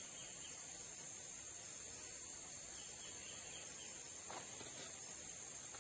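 Steady, high-pitched drone of insects in the trees, with a couple of faint clicks near the end.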